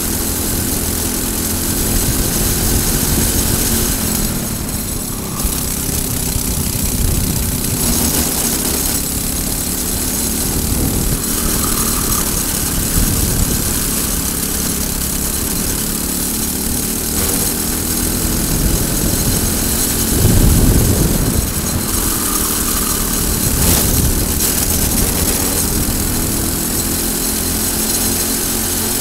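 Briggs & Stratton single-cylinder four-stroke kart engine running at racing revs, its pitch falling into the corners and rising again on the straights, mixed with wind noise. About two-thirds of the way through there is a brief, louder low rumble.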